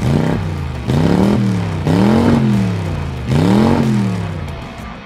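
Race car engine sound effect revving several times, each rev rising and then falling in pitch, about a second apart; the last one fades out near the end.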